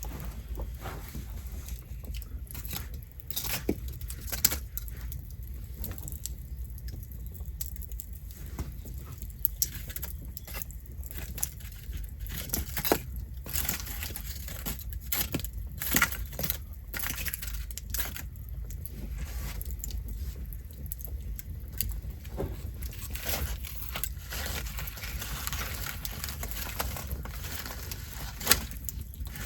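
Campfire crackling and popping: irregular sharp snaps of burning wood over a steady low rumble of flame, with a few louder pops.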